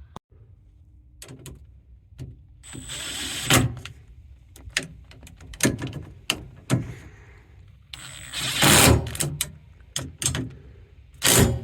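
Hand tools tightening the two mounting bolts of a parking brake lever. Scattered metallic clicks and knocks, with two longer spells of rapid clicking about three and eight seconds in.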